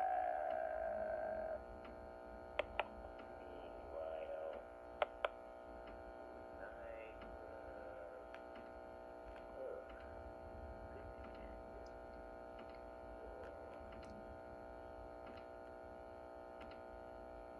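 Steady electrical hum, with a faint voice in the first second or so and a few sharp clicks, two about two and a half seconds in and two about five seconds in.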